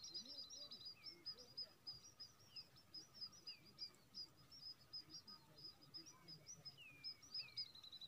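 Faint small songbirds chirping: a dense run of quick, high chirps, with a fast even trill at the start and again near the end, and now and then a short falling whistle.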